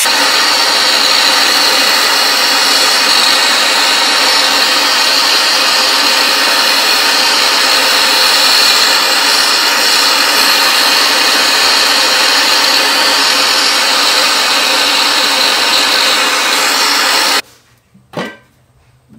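Handheld gas torch burning with a loud, steady hiss as its flame heats a silver spoon. The hiss cuts off abruptly near the end, followed by a single knock as the glass lid of a slow cooker is handled.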